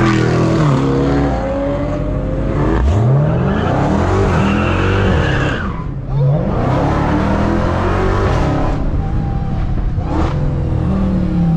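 2021 Dodge Charger SRT Hellcat's supercharged 6.2-litre HEMI V8 under hard acceleration, heard from the cabin. The engine note climbs in pitch, drops around six seconds in and climbs again as it pulls up through the revs.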